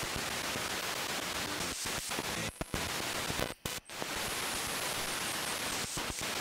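Spirit box sweeping through radio stations: a steady hiss of radio static, broken by a few brief dropouts near the middle.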